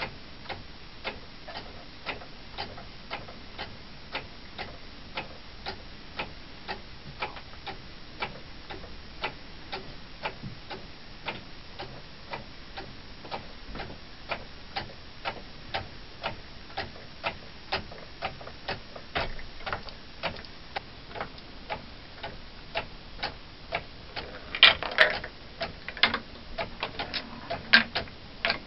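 Wooden clockwork mechanism ticking steadily at about two sharp wooden clicks a second, with a burst of louder knocks and clatter near the end.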